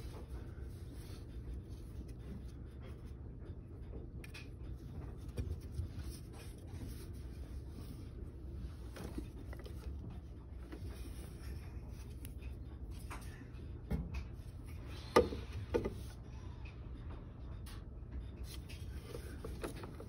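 Handling noises from working on black plastic bathtub drain pipes: soft rubbing and light clicks over a steady low hum, with a sharp knock about fifteen seconds in and a second one just after.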